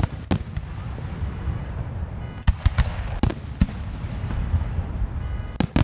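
Aerial fireworks shells bursting: a sharp bang about a third of a second in, a quick run of five bangs around the middle, and two more close together near the end, over a steady low rumble.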